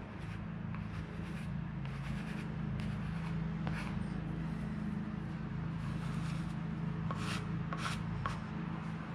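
Plastic squeegee rubbing and scraping in short strokes over a wet lacquer-coated wooden board, pressing a tissue-paper print into the clear coat, with a few sharper scrapes near the end. A steady low hum runs underneath.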